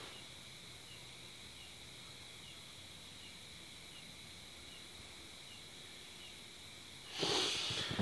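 Steady high drone of night insects, with faint short chirps repeating under a second apart. Near the end a sudden loud rushing noise lasts about a second.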